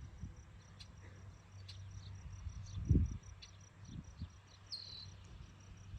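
Faint, steady chirping of insects, evenly pulsed and high-pitched, over a low rumble. A dull thump comes about three seconds in, and a brief high falling chirp near the end.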